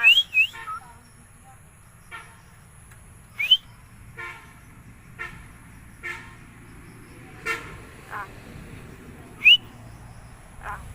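Myna (shalik) giving sharp, rising whistles, two together at the start, then one about 3.5 s in and a loud one near the end, with short call notes about once a second in between.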